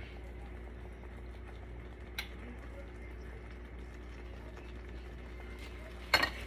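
Silicone spatula stirring thick cream-cheese shrimp dip in a skillet, over a steady low hum. There is a soft tap about two seconds in and a louder pair of knocks against the pan near the end.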